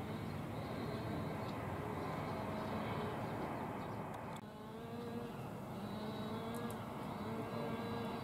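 A steady, distant engine drone with a faint wavering hum, broken off abruptly about four and a half seconds in and then continuing.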